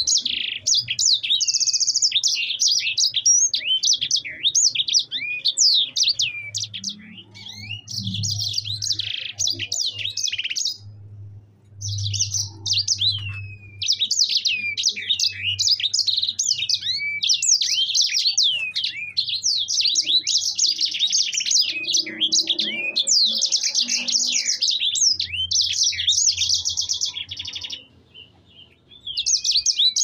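Caged sanger finch singing a long, fast, rolling song of rapid trills and downward-slurred notes, pausing briefly twice.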